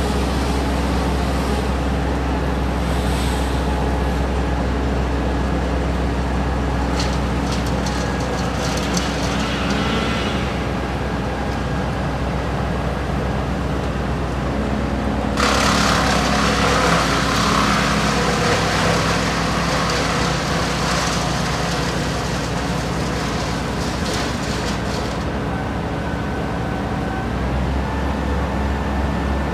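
A heavy vehicle engine running steadily with a low hum. About halfway through, a loud rushing, hissing noise joins it for about ten seconds, then stops. Near the end the engine's pitch steps up slightly.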